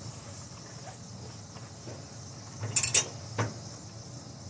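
Cargo strap being worked into a flatbed trailer's strap winch under the deck rail: quiet handling, then a quick cluster of sharp metallic clicks and rattles about three seconds in and one more click just after.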